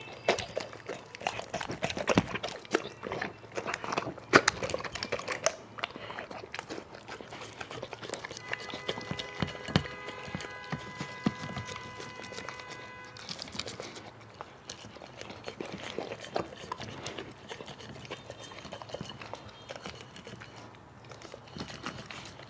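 A dog eating greedily: irregular chomping and crunching clicks, thickest in the first few seconds. A steady tone with several pitches sounds under it for about five seconds near the middle.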